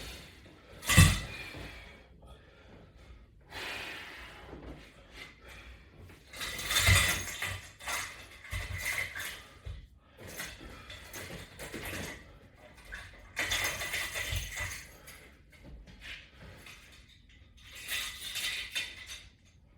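Exercise repetitions on resistance-band and strap equipment: a sharp knock about a second in, then a noisy swish or breath every three to four seconds as each rep is done.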